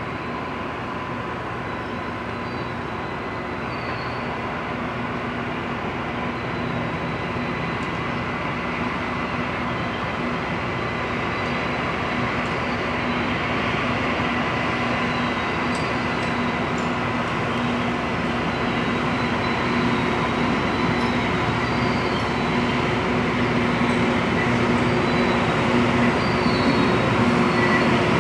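Loram rail grinder train, led by F40PH locomotive RG-417, approaching along the track. It makes a steady running noise with a high steady whine and grows steadily louder as it nears.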